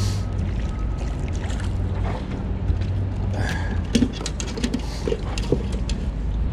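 A few light clicks and knocks of fishing gear and the landing net being handled in an aluminium boat, about four seconds in, over a steady low rumble.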